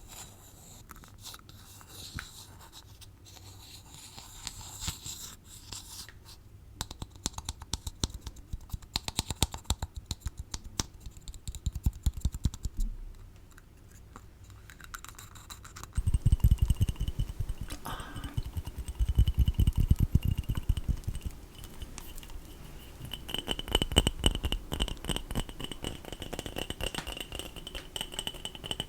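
Close-up ASMR tapping and scratching on small objects: soft scratching at first, then a flurry of quick taps, growing louder with dull knocks about halfway through, over a thin high ringing tone.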